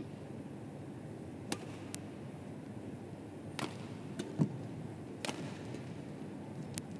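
Badminton rackets striking a shuttlecock in a rally: sharp cracks every second or so at uneven intervals, with a duller thump about four and a half seconds in, over the steady hum of an arena.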